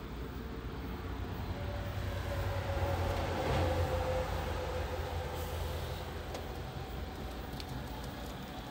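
Diesel engine of a JCB 535-140 telehandler running, heard from inside the cab. The engine sound swells briefly about three seconds in, with a faint whine rising over it, then settles back to a steady run.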